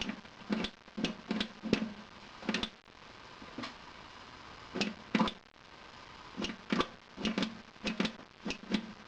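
Desktop PC system unit knocking repeatedly as it struggles to start: irregular sharp knocks, often in quick pairs or small clusters, each with a brief low ring.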